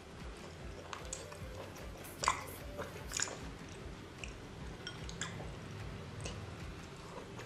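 Close-miked eating of raw salmon: wet chewing and smacking mouth clicks, the sharpest about two and three seconds in, over background music.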